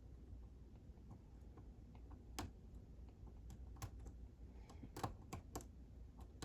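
Small sharp metallic clicks of a hook pick and tension wrench working the pins inside a Sargent Signature lock cylinder during picking. The clicks come singly and irregularly, with a quick run of louder ones about five seconds in.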